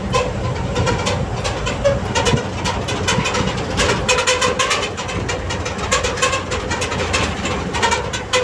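Inside a moving truck's cab: the engine and road rumble run steadily, with a continual rapid rattling of the cab over the road.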